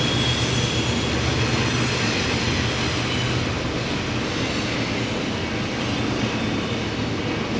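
A train going by, a steady rumble.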